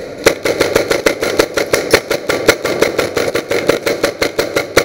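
An airsoft gun firing one long full-auto burst, about ten shots a second, close by; it stops just before the end.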